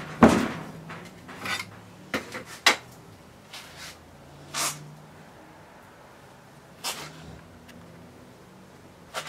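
Hand tools being handled at a workbench: old steel pliers and a small brush knocking and clinking as they are picked up and set down, about seven separate knocks with the loudest just after the start, and one short rushing noise about halfway through.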